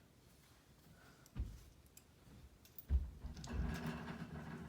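Faint handling noise: two soft low thumps about a second and a half apart, then a light low hum and a few small clicks, as a nickel is worked along the gap between a door and its jamb.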